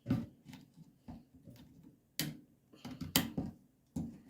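Scattered light clicks and taps of a hand tool working small nails out of a wooden screen door, a few sharp ones about two, three and four seconds in.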